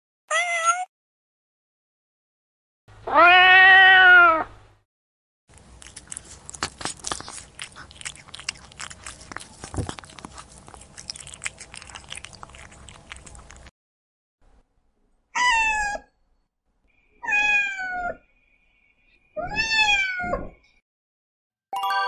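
A cat meowing: a short meow, then a long one. Then a cat eating, with wet crunching and clicking of chewing for about eight seconds, followed by three more meows, higher-pitched and each falling at the end.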